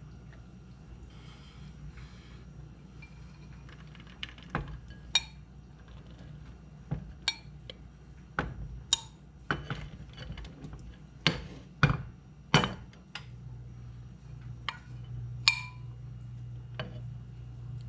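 Metal spoon clinking and scraping against a glass mixing bowl as shredded cheddar is spooned out: about a dozen sharp clinks at irregular intervals, starting about four seconds in. A low, steady hum runs underneath.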